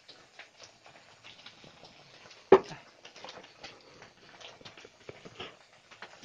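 Faint scraping and clicking of a stone pestle working spices in a stone mortar (cobek and ulekan). One loud, sharp knock comes about two and a half seconds in.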